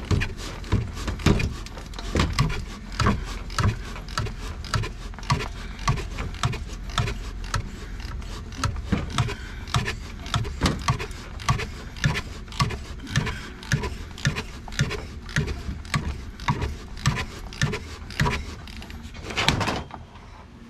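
A 3/8-inch ratchet clicking in a steady run of short strokes, turning a cup-type oil filter housing wrench to loosen the plastic oil filter housing cap, with a longer, louder noise just before the end.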